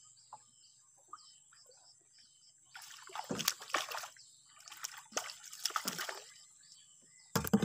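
Hooked baung catfish thrashing and splashing at the water's surface beside the boat as the longline is hauled in, in irregular bursts starting about three seconds in. A sharp knock near the end.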